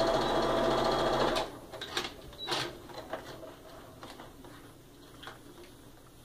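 Electric sewing machine stitching a seam in quilt pieces at a steady fast speed, stopping about a second and a half in. A few light clicks and rustles follow.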